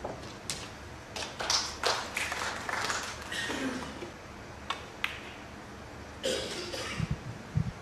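Snooker balls clicking: the cue tip striking the cue ball and balls knocking together in sharp, separate clicks, with a couple of low thuds near the end.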